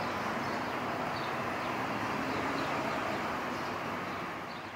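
Town street ambience: a steady wash of distant traffic noise with a few faint high chirps, fading out near the end.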